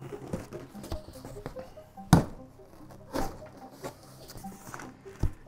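Cardboard shipping box and its packing being handled: scattered light rustles and knocks, with one sharp knock about two seconds in and another a second later.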